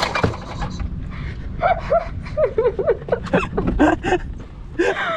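A man laughing in a string of short bursts while he pulls the starter cord of a stalled small Mercury outboard, which does not catch. There is a steady low hum with wind and water noise beneath, and a few knocks in the first second.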